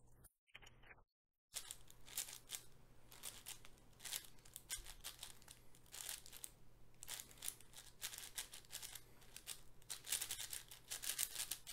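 MGC 6x6 magnetic speedcube being turned quickly during a solve: a continuous run of small plastic clicks and rustling scrapes from the layers, the cube freshly lubricated. The turning starts after a short silent gap about a second and a half in.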